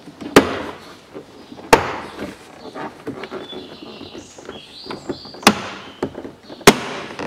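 Plastic door trim panel being pulled loose by hand, giving four loud, sharp snaps and knocks with lighter clicks and rubbing between them.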